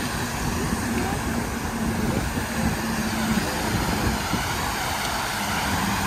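Wind buffeting the microphone: a steady rushing noise with a gusty low rumble.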